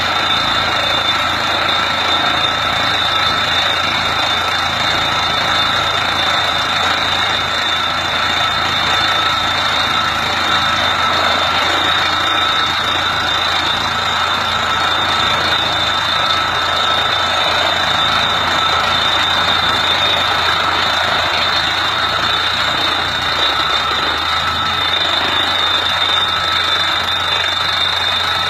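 Tractor-mounted water-well drilling rig running steadily, its hydraulics driven from the tractor engine through the PTO, with a constant high-pitched whine over the machine noise.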